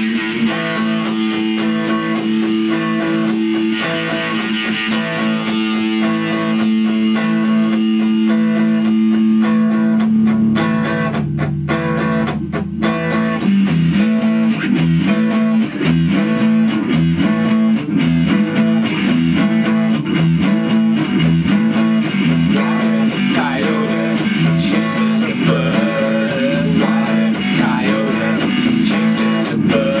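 Electric and acoustic guitars playing an instrumental passage. A chord is held for about the first ten seconds, then a busier picked part with lower notes takes over.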